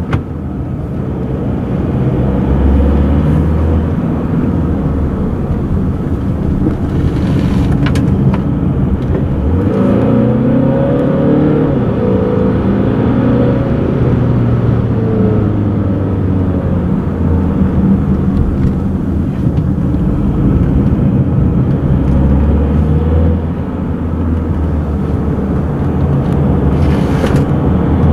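Volvo XC60 D4's 2.0-litre four-cylinder twin-turbo diesel heard from inside the cabin while driving, with tyre and road noise. The engine note rises and falls with the throttle and climbs in pitch about ten seconds in. It eases briefly a little after twenty seconds.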